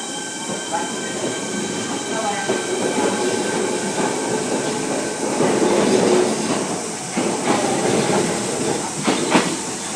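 Kintetsu 6820 series electric commuter train, two two-car sets coupled, pulling away: electric motor whine and running noise build up, with wheels clacking over rail joints, a few sharp clacks near the end.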